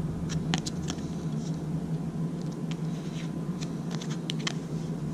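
Scattered light clicks and taps of small items, bullion coins in their packaging, being handled by hand over a steady low hum.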